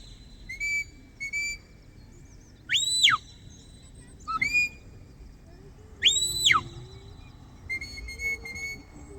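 Shepherd's whistle blown in a series of commands to a working sheepdog. Short level pips alternate with three longer notes that swoop up and drop back down, and a quick run of pips comes near the end. These are the handler's signals for moves such as go left, go right and lie down.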